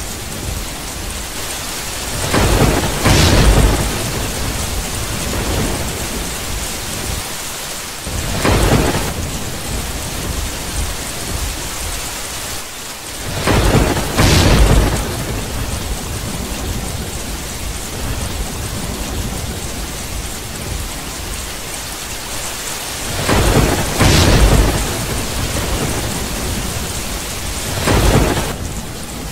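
Steady rain hissing throughout, with thunder cracking and rumbling in five times: about three seconds in, about nine, about fourteen, about twenty-four and near the end.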